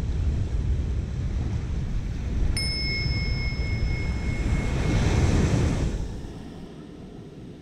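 A single bell chime strikes about two and a half seconds in and rings for about two seconds; in a flow timed in 60-second intervals with 20-second transitions, it marks a change of interval. Underneath is a steady rush of ocean surf and wind on the microphone, which swells around five seconds and then drops away.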